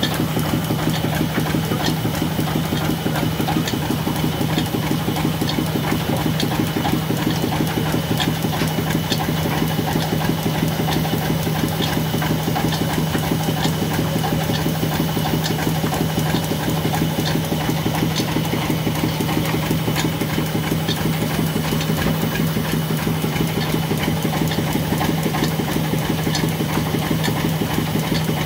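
Red single-cylinder stationary diesel engine running steadily under power, driving a flat belt and line-shaft pulleys of a belt-driven saw machine, with a light regular ticking over the even engine sound.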